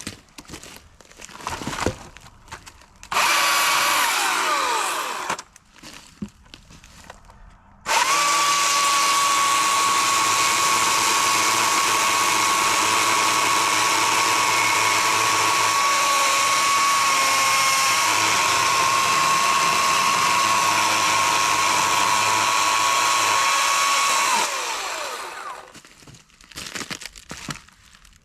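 EGO CS2005 20-inch battery-powered chainsaw: a short burst of running about three seconds in, then running steadily at full speed with a high steady whine for about sixteen seconds, its pitch falling away as it winds down. Knocks and clicks of handling come in the gaps.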